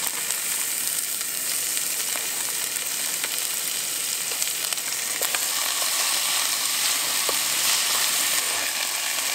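Ground beef and diced onions frying in hot avocado oil in a pot: a steady sizzling hiss with scattered small pops.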